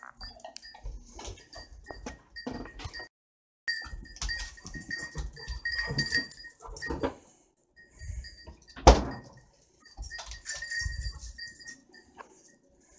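A small dog making short animal noises and moving about on a wood floor, with many light clicks. A single sharp knock about nine seconds in.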